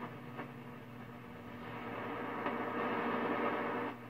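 1934 RCA 128 tube radio's speaker giving a steady hum and static while its tuning knob is worked. After two faint clicks near the start, a rushing hiss swells for about two seconds, then cuts off suddenly near the end as the tuning shifts.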